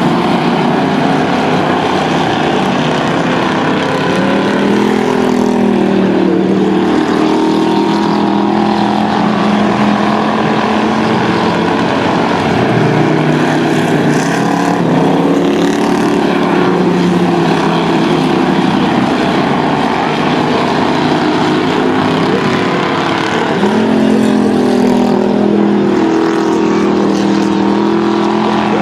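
Several dirt-track stock cars' engines running hard in a race, their pitches rising and falling over and over as the cars accelerate and lift.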